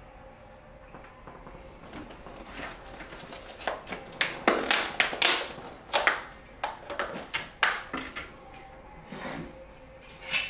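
Clicks, taps and crackles of a plastic food container of pineapple chunks being handled and opened, with the chunks picked out by hand. The sharpest, loudest clicks come in the middle of the stretch.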